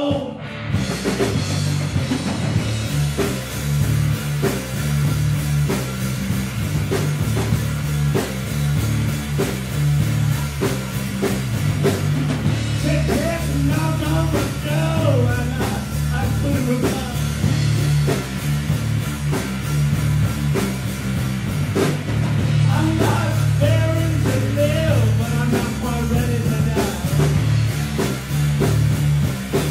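A live rock band playing loud: a steady drum-kit beat under electric guitars, with harmonica lines played into the vocal mic, bending in pitch, about midway and again later.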